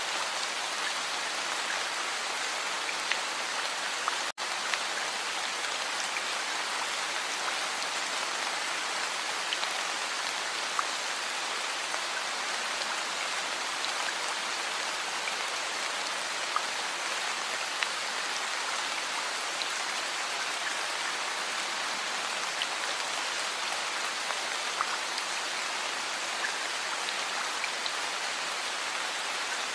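Heavy rain falling steadily: an even hiss with scattered sharper drop hits. The sound cuts out for an instant about four seconds in.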